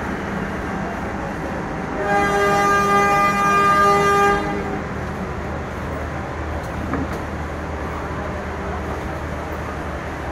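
A train horn sounds one long blast of about two and a half seconds, starting about two seconds in, over steady background noise from the crowded station.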